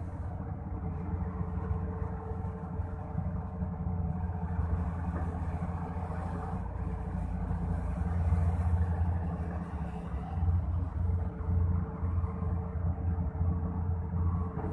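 Volvo EC480DL excavator's diesel engine running, a steady low rumble that swells louder about eight seconds in and again from about ten seconds on as the machine works.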